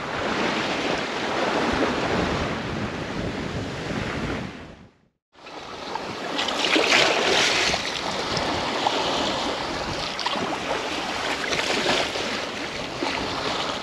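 Open-ocean waves and water rushing past a sailboat's hull under way, with wind buffeting the microphone. The sound cuts out briefly about five seconds in and comes back with a loud hissing splash.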